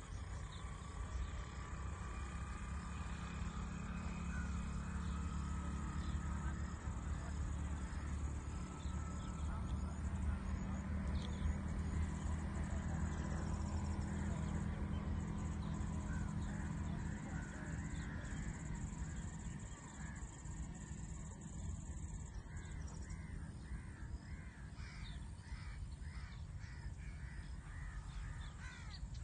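Wind buffeting the microphone as a steady low rumble, with birds calling across the field. Near the end a bird repeats a short call two or three times a second.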